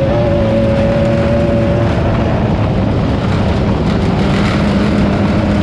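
Class 9 off-road race car's engine running hard under a steady throttle, its note holding for about two seconds, blurring, and coming back near the end, over a constant loud rush of wind and rough-ground noise.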